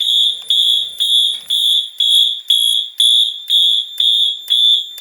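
Fire alarm horns sounding in march-time code: a loud, high electronic tone pulsing evenly about twice a second.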